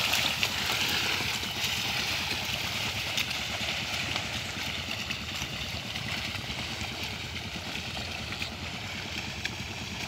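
Steady sloshing and swishing of water and mud as two water buffalo drag a wooden ladder harrow through a flooded paddy field, a little louder in the first couple of seconds.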